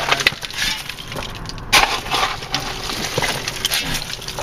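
Stone being shoveled: a shovel scraping and loose rock crunching and clattering in irregular bursts, with a loud crunch about a second and a half in.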